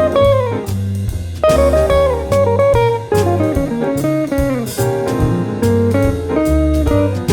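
Background music: guitar-led instrumental with bending notes over bass and drums.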